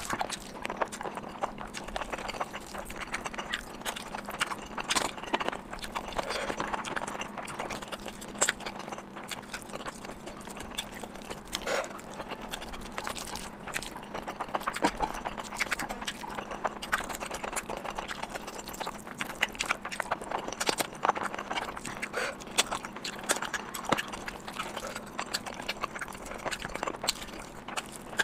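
Close-miked eating sounds: a person chewing and biting food, many small irregular clicks and crunches.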